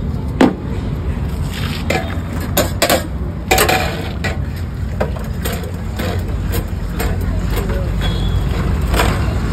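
Stainless-steel pots, plates and a ladle clinking and scraping in short scattered knocks, over a steady low hum.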